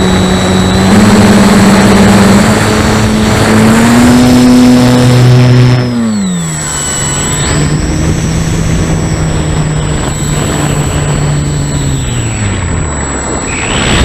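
Parkzone S.E.5a's electric motor and propeller running, heard from a camera on board over a rush of air. The motor's pitch is steady and climbs a little, drops sharply about six seconds in, holds lower, dips again near the end and starts to climb. A thin high whine runs throughout.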